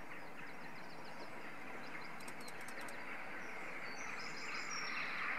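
Starlings chirping in short high calls over a steady rushing hiss, the hiss growing louder near the end.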